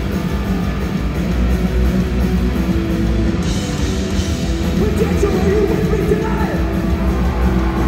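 Punk rock band playing live: loud, steady rock music.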